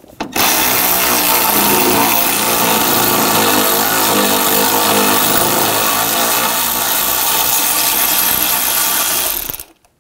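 Cordless electric ratchet with a 13 mm socket running steadily for about nine seconds, spinning a bolt out; it starts about half a second in and cuts off near the end.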